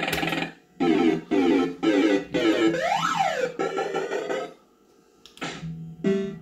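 Bell-Fruit Cash Explosion fruit machine playing its electronic sound effects: quick runs of synthesizer tones, with a sweep that rises and falls in pitch about three seconds in. The tones break off for about half a second, then start again as the reels spin.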